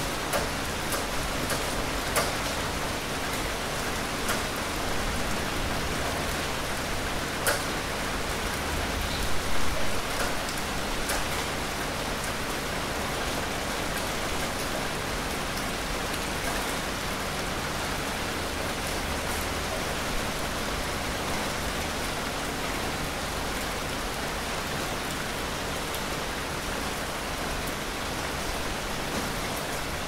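Steady rain falling: an even hiss with scattered sharper ticks of single drops, and a brief louder swell about nine seconds in.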